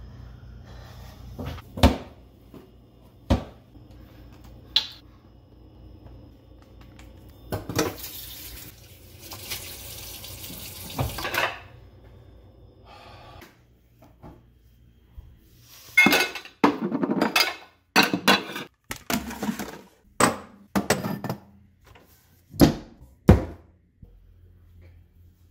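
Dishes knocking and clattering in a kitchen sink, with a tap running for about three seconds in the middle. There are three separate knocks in the first five seconds, then a quick run of loud clatters in the last third.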